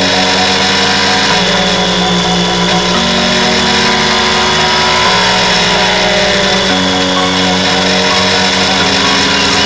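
Motorcycle engine and wind noise from a camera mounted low on the bike's fairing, with the engine pitch rising and falling at times. Background music with steady chord changes plays underneath.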